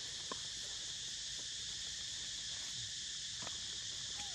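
Insects droning steadily at a high pitch, with a few faint clicks and a brief short call near the end.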